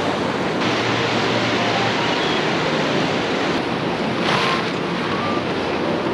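A river flowing alongside, a steady rushing. About four seconds in, a brief rustle that fits the tent flysheet being handled.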